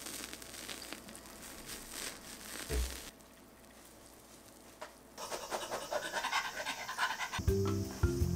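A dog panting close by, in two stretches with a short quiet gap between them. Light background music comes in near the end.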